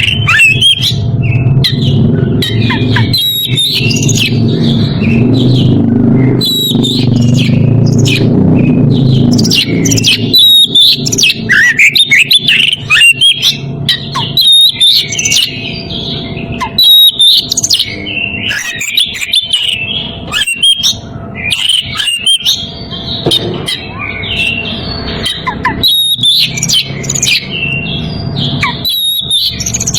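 Oriental magpie-robin (kacer) singing continuously in rapid, varied whistles and chirps. This is a bird in breeding condition calling out to challenge a rival. A low background rumble runs beneath the song for roughly the first ten seconds.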